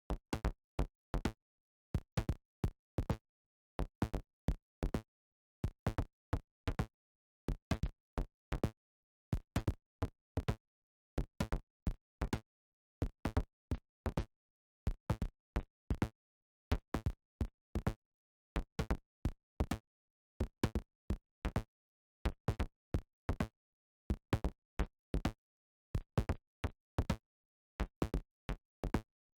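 Synthesized percussion hits from a Surge Synthesizer patch: short knocking hits in groups of two or three, the pattern repeating about every two seconds with dead silence between.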